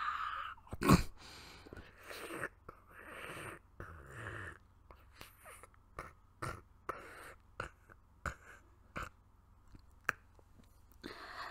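Close-miked ASMR mouth sounds and breaths acting out a vampire bite: a few breathy exhales with a sharp click about a second in, then a run of short wet mouth clicks and smacks.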